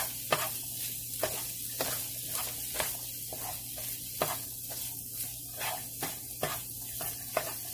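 Sliced mushrooms, onion and garlic sizzling in oil in a frying pan, with a spatula stirring and scraping through them about twice a second.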